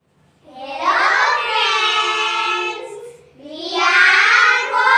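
A group of young girls singing together: two long held phrases, with a short break about three seconds in.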